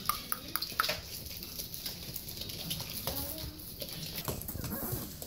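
Staffordshire Bull Terrier puppies playing in their pen: paws and claws pattering and scrabbling on the floor with scattered taps, and a few short puppy vocal sounds about three seconds in.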